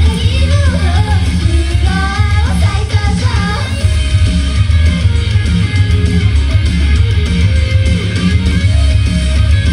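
Rock band playing live: a sung vocal line over guitars and a steady low beat for about the first four seconds, then the band plays on without vocals.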